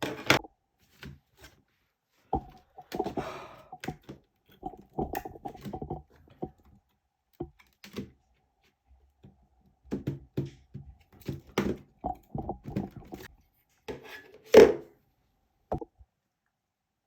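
Scattered knocks, clicks and short rattles of laptop parts and tools being handled on a hard surface during a thermal paste job, with the loudest thunk near the end.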